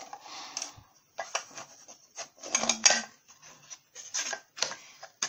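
A hard plastic kitchen gadget being handled and put away: a string of clattering knocks and rubbing, loudest about two and a half to three seconds in.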